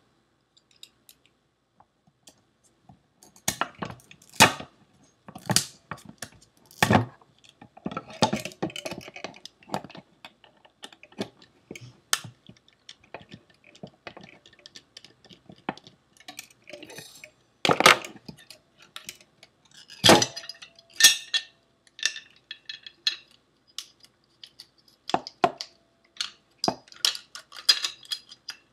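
Metal parts of a Seagate ST410800N full-height hard drive clinking and knocking as it is taken apart by hand: irregular sharp clicks and clanks with short pauses, a few louder knocks among them.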